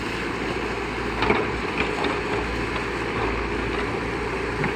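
Backhoe loader's diesel engine running steadily, with two short knocks a little over a second in.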